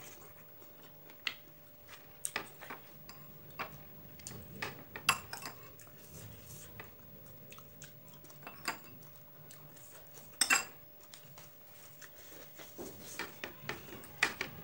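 Close-up eating sounds: chewing, with scattered clinks of a metal spoon against ceramic bowls and a plate. The loudest clinks come about five and ten and a half seconds in.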